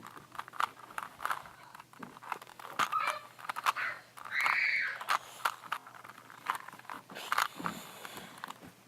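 Plastic clicks and clacks of a 3x3 Rubik's cube as its layers are turned, with a short high-pitched call about four and a half seconds in.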